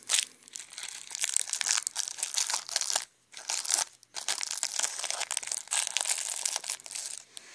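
Plastic wrapper of an orange chewy candy being twisted open and crinkled by hand: a dense crackling of many small clicks, pausing briefly about three and again about four seconds in.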